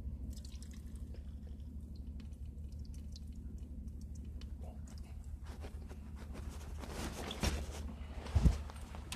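Faint drips and rustling in a small bathroom, picked up by a phone in a pocket, over a steady low hum. The rustles and drips grow busier from about halfway through, with two thumps near the end.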